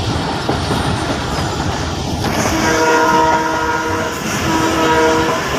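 Train horn sounding twice, a long blast of about a second and a half and then a shorter one, over the steady running noise of the passenger carriage on the rails, heard from inside the carriage.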